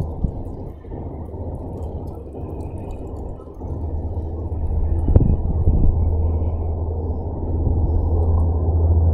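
Low rumble of wind buffeting the microphone, growing louder about halfway through, with a sharp click about five seconds in.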